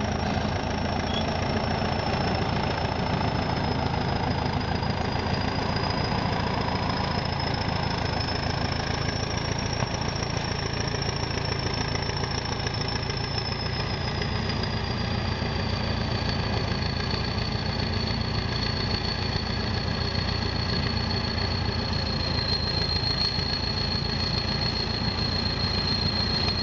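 Diesel engine of a ChTZ T-130/T-170-series crawler bulldozer running steadily under load as it pushes soil, with a high whine above it that wavers slightly in pitch.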